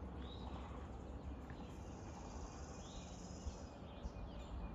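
Outdoor ambience of short bird chirps repeating every second or so, over a steady high insect buzz and a low rumble on the microphone.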